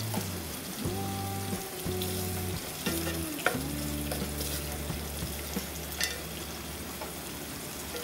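Sliced onions and dried red chillies sizzling steadily in hot oil in a steel pan, stirred with a wooden spatula that clicks against the pan a few times.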